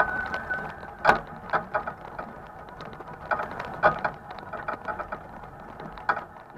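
Irregular mechanical clicks and knocks, a sharp one about a second in and another strong cluster near four seconds, over a faint steady background.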